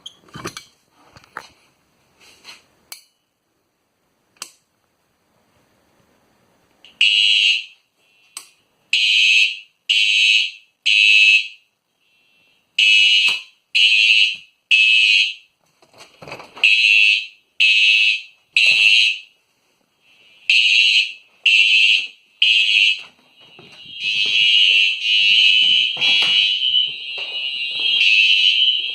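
A few light clicks, then fire alarm horns start sounding about seven seconds in, loud and high-pitched, in the temporal-three evacuation pattern: three pulses about a second apart, a pause, and again. Near the end more horns sound out of step with them, so the sound becomes nearly continuous.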